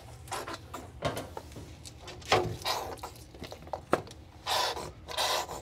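Wet fur squishing and rubbing in irregular bursts as hands massage conditioner into a soaked husky mix's double coat, with a sharp click a little before four seconds in.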